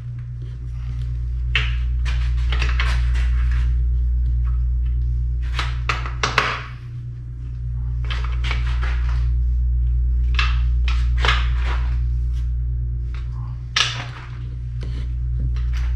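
Metal tools and parts clinking and knocking intermittently as they are handled on a New Process 208 transfer case, over a loud steady low hum.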